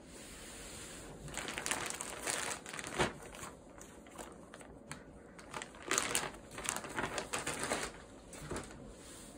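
Clear plastic poly bag crinkling and crackling in irregular bursts as it is handled, opened and the sweatpants are pulled out, with sharper crackles about three seconds in and again about six seconds in.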